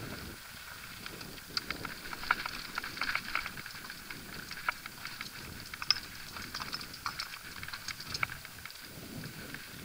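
Mountain bike rattling over a rocky, gravelly trail: tyres crunching on loose rock and the bike clattering in irregular sharp clicks and knocks, busiest through the middle of the stretch, over a steady rush of riding noise.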